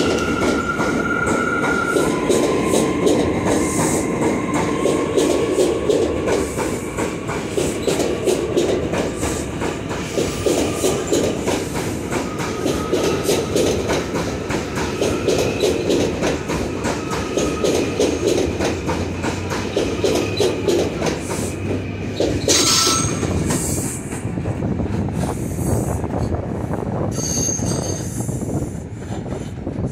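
R179 subway train rolling along the platform: a steady wheel-on-rail rumble with rapid clicks from the rail joints and high wheel-squeal tones. A brief louder screech comes about three-quarters of the way in.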